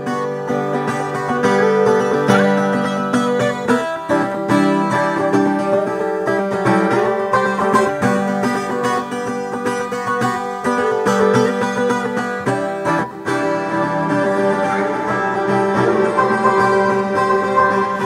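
Instrumental music played on a plucked acoustic string instrument, a melody of ringing picked notes.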